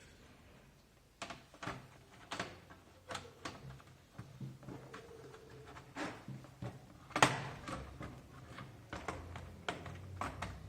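Plastic parts of a disassembled computer keyboard being handled and fitted back together: irregular clicks and knocks, the loudest about seven seconds in.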